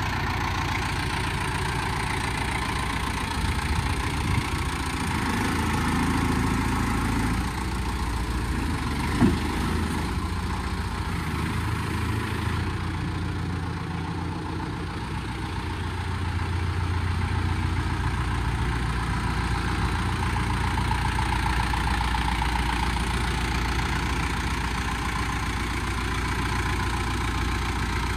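Kubota M6040 tractor's four-cylinder diesel engine idling steadily, with one short sharp knock about nine seconds in.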